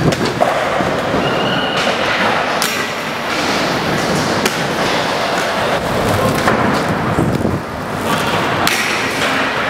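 Inline skate wheels rolling steadily on a smooth concrete floor, with a few sharp clacks as a skater jumps onto a rail, grinds it and lands, about two and a half and four and a half seconds in, and another clack near the end.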